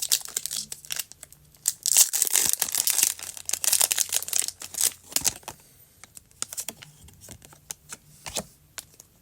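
Foil Pokémon TCG booster pack being torn open, with dense crinkling and tearing for about five seconds, then only a few scattered light clicks and taps.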